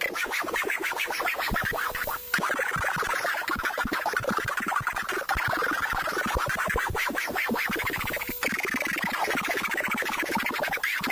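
Handmade Arduino drone/noise synthesizer playing a dense, rapid crackle of glitchy clicks over a buzzing band of noise. Its tone shifts about two seconds in and again near the end.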